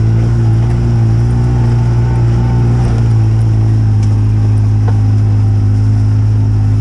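Vehicle engine running at a steady speed, a constant low drone.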